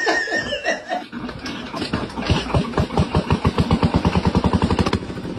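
A small engine starting and running with rapid, even exhaust pulses, preceded by about a second of laughter.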